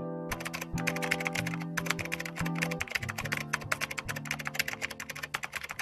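Rapid clatter of computer keyboard typing, many keystrokes a second, starting just after the beginning, over background music whose held guitar notes fade out about halfway through.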